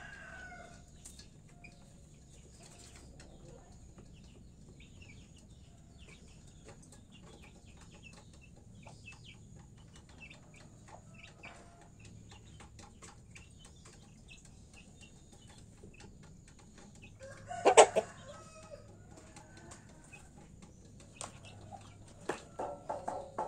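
Domestic chickens foraging, with faint scattered pecking and scratching clicks. About three-quarters of the way through there is one loud, sudden burst of bird noise, and near the end a chicken starts clucking in quick repeated calls, about three a second.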